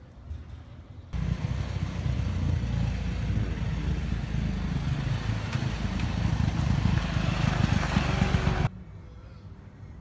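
Motor scooter engine running as the scooter rides up close, growing louder toward the end. The sound cuts in suddenly about a second in and stops abruptly near nine seconds.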